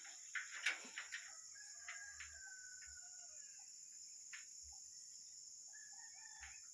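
Faint rooster crowing, a few calls in the first second or so followed by a thin drawn-out tone, over a steady high trill of insects.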